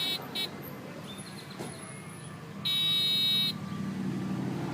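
Electronic horn of a ride-on toy car beeping as its button is mashed: a short beep at the start, then one longer beep about three seconds in. A low hum starts near the end.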